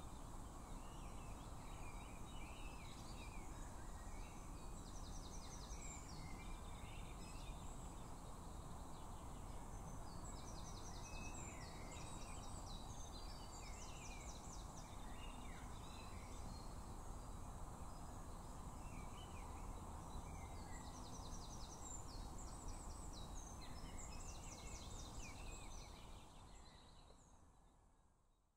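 Outdoor field ambience: a steady low background rumble with birds calling on and off, and a few short runs of rapid high chirps. Everything fades out over the last couple of seconds.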